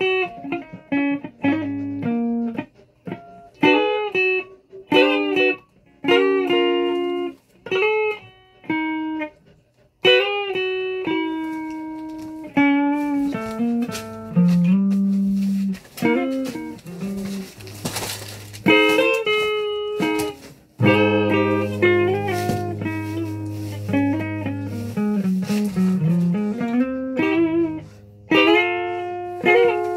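Guitar music: short plucked chords separated by brief gaps for the first third, then more continuous playing with held notes over a low bass line.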